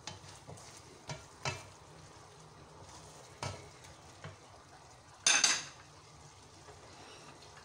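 A wooden spoon stirring a thick prawn masala in a frying pan over a faint sizzle, with several short scrapes against the pan. About five seconds in there is a louder knock-and-scrape as the spoon is laid down in the pan.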